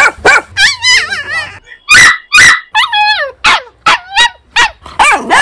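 Dogs barking and yelping in quick succession, about two calls a second, some high-pitched with a wavering pitch like whining; the two loudest barks come about two seconds in.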